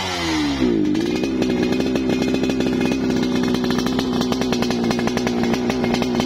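Yamaha RX-King two-stroke single-cylinder motorcycle engine, tuned for revving, being revved. The revs drop back during the first second, then the throttle is held so the engine runs at a steady high rpm with a buzzing two-stroke tone for the rest.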